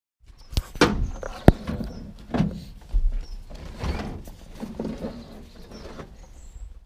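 Irregular knocks, clicks and rustling from arborists handling their kit and pulling on a hi-vis jacket, the sharpest knock about a second and a half in. A few faint high chirps come near the end.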